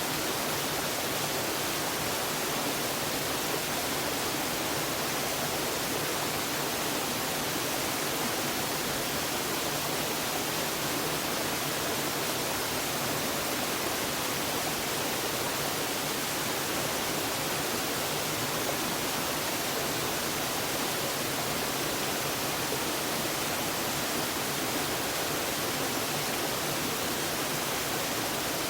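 Reirō Falls pouring steadily: an even, unbroken rush of falling water.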